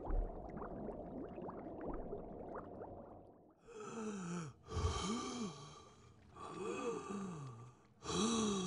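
Muffled underwater sound with bubbling for about three and a half seconds, then a smoker's four wheezing breaths in a row, each with a wavering, groaning pitch.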